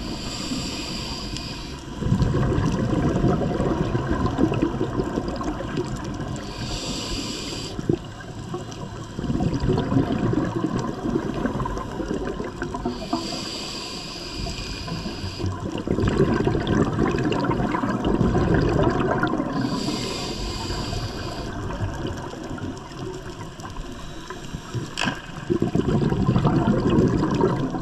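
Scuba diver breathing through a regulator underwater: a short hiss as each breath is drawn through the demand valve, then a longer rush of bubbling exhaust. The cycle repeats about every six to seven seconds, four breaths in all.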